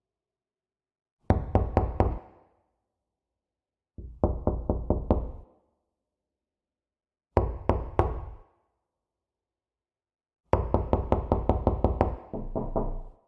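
Knocking on a door in quick runs of knocks separated by silent pauses: four runs, the last one longer with about a dozen knocks.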